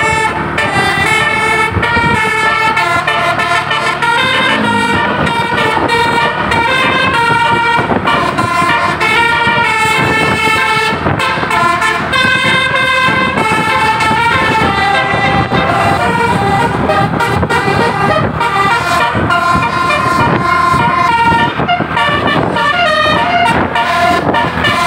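Basuri musical horn playing a tune: loud horn notes stepping from pitch to pitch without a break.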